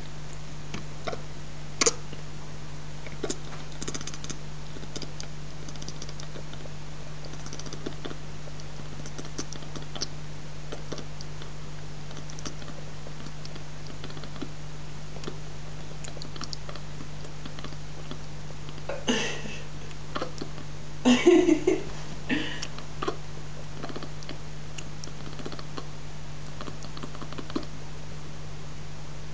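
Domestic cat chattering: scattered quick clicks with a louder burst of chatter about two-thirds of the way through, over a steady low hum.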